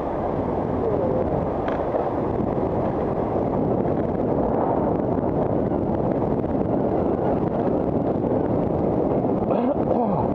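Wind rushing over the microphone of a bike-mounted camera while riding along a city street: a steady low rumble.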